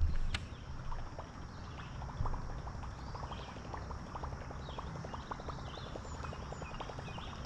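Faint rapid ticking, several clicks a second, while a topwater lure is reeled in on a baitcasting outfit, with small birds chirping.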